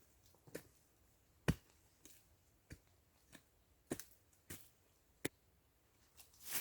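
Chopping: a series of about nine sharp, irregularly spaced strikes of a hand tool biting into wood or ground.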